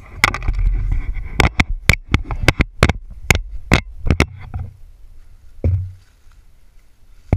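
Handling noise from an action camera being moved and knocked about: a rumbling rub at first, then a quick run of sharp clicks and knocks against the helmet and climbing gear, and one dull thump later on.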